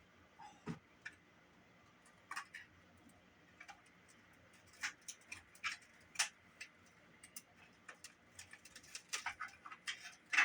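Scattered light clicks and taps of small plastic and metal parts being handled, as old batteries are worked out of a cassette walkman's corroded battery compartment. The clicks come irregularly, a few every second or two, and grow busier near the end.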